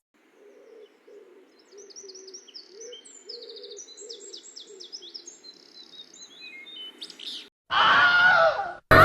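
Songbird chorus: quick high chirps and trills over a steady outdoor hiss, with lower calls repeating beneath. Near the end it cuts to a much louder cry that falls in pitch for about a second.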